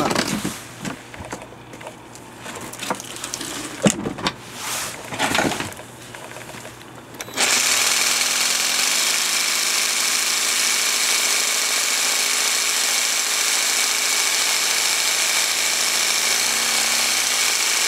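Cordless jigsaw cutting through tile. After a few scattered clicks and knocks, the saw starts about seven seconds in and runs steadily under load, its blade cutting the tile with a loud, hissing rasp until near the end.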